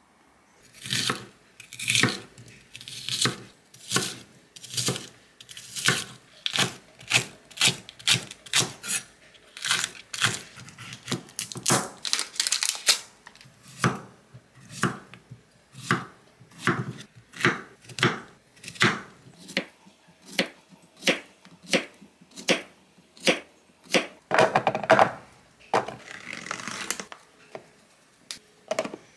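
Kitchen knife chopping Korean zucchini on a wooden cutting board, a steady run of chops about one or two a second. Near the end come a few seconds of rustling as powder is poured from a plastic bag into a plastic tub.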